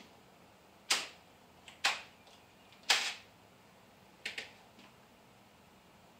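A series of sharp clicks, about five over four seconds, some doubled, from the operator's hand working the model railroad's controls at the edge of the layout.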